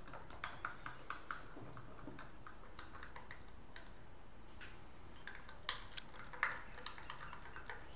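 A spoon stirring protein powder into water in a small glass, clicking and scraping against the glass: a quick run of light clicks near the start and a few more, with a short scrape, near the end.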